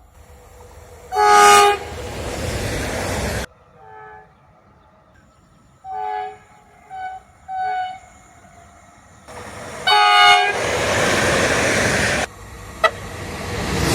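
Train horns sounding in several separate short clips. First comes a loud blast followed by the rushing noise of a train passing close by. Then three short toots in quick succession, and finally another loud blast as a train rushes past.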